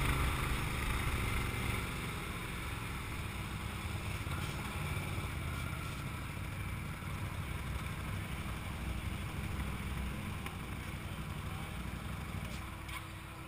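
Can-Am Maverick side-by-side's V-twin engine running at low speed as it rolls slowly. The engine note drops about two seconds in and then holds steady and low.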